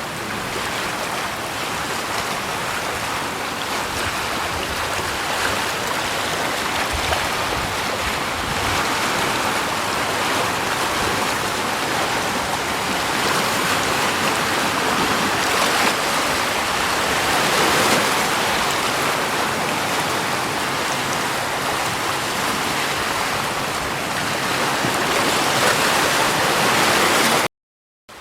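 Steady rushing water, an even hiss-like wash with only slight swells. It cuts off abruptly near the end.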